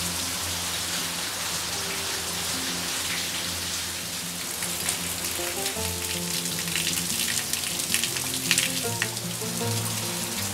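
Steady heavy rain pattering on a surface, with sharper drop splashes in the middle, over slow instrumental background music of held notes.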